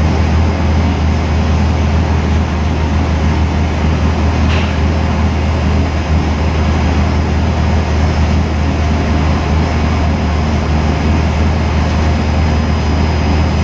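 A 427 cubic inch LS V8 race engine running at a steady speed on the engine dyno: a deep, even drone with no change in pitch.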